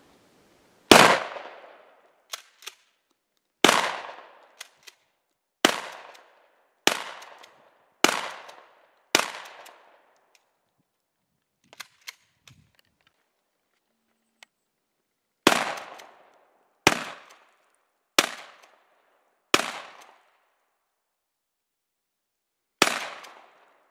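Gunshots fired at vegetables set on a tree stump: six shots in quick succession, a pause of a few seconds, then five more, each sharp crack trailing off in an echo.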